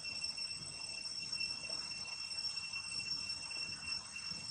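Steady chorus of forest insects: a continuous high drone made of a few even tones, held without a break.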